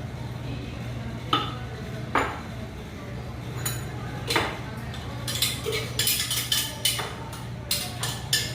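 A utensil clinking against a glass jar as the blended syrup is transferred into it: a few separate clinks about a second apart, then a quicker run of clinks in the second half.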